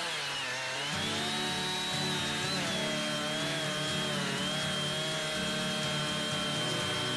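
Chainsaw engine running at high revs, its pitch dipping at the start and climbing back within about a second, then holding steady.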